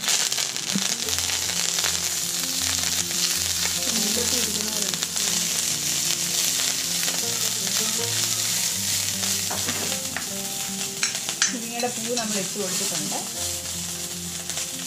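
Fresh moringa flowers hitting hot coconut oil in a cast-iron kadai: a loud sizzle that starts suddenly as they go in, then a steady frying hiss while a ladle stirs them. Soft background music underneath.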